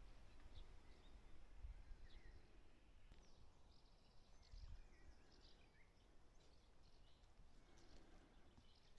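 Near silence: faint outdoor ambience with scattered, distant bird chirps and a soft low rumble.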